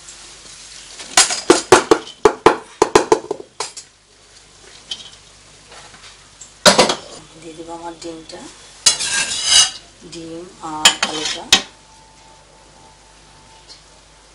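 Metal spoon scraping and clinking against a nonstick pot as cooked rice and fried potatoes and eggs are spooned in over the meat. The clatter comes in clusters: a run of quick clicks in the first few seconds, a sharp clank about seven seconds in, then more scraping and clinking from about nine to eleven and a half seconds.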